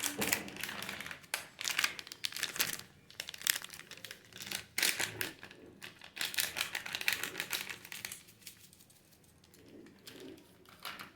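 A spatula stirring and scraping chicken pieces in a frying pan, with irregular scrapes and clatters and a crackle of frying, as the spiced meat is cooked down. It goes quieter about eight seconds in.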